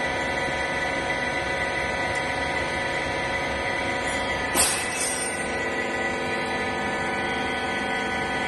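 Hydraulic rags baler machine running with a steady, many-toned mechanical hum. About halfway through comes one sudden loud knock with a brief high ringing after it.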